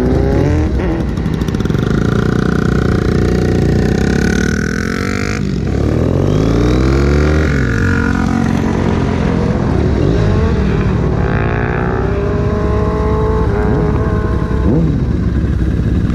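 Motorcycle engine pulling away and accelerating, its pitch climbing and then dropping at each upshift several times through the gears.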